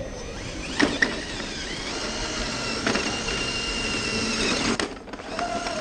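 Brushless motor and geared drivetrain of an RC scale crawler whining steadily as the truck works over rocks, with a couple of sharp clicks about a second in. The whine stops shortly before the end.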